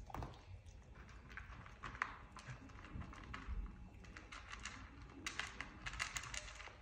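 Faint, scattered light clicks and scratchy rustles of small pets moving and playing, with a quick cluster of clicks about five seconds in.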